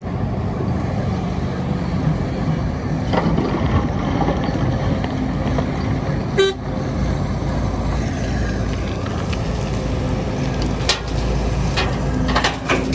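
Sumitomo SH300 excavator's diesel engine running steadily under load, with a few sharp knocks scattered through, the most prominent about six and a half seconds in and more near the end.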